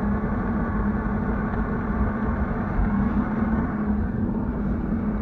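Bass boat's outboard motor running steadily at speed: an even engine drone over a dense low rumble.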